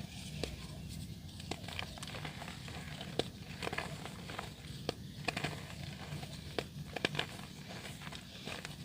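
Soft dirt crumbling, making irregular small crackles and crunches, with a few sharper snaps spread through, over a steady low hum.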